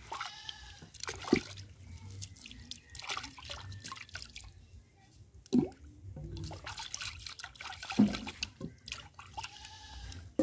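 Water sloshing and splashing in the bottom of a wooden mortar as its inside is scrubbed out by hand, with a few dull knocks of the wooden pestle against the wood, about three louder ones spread through.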